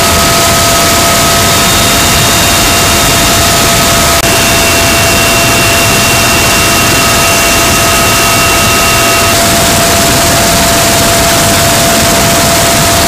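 Military helicopter in flight, heard from inside the cabin: a loud steady rush of rotor and engine noise with steady high turbine whine tones. The whine tones shift slightly about four seconds in.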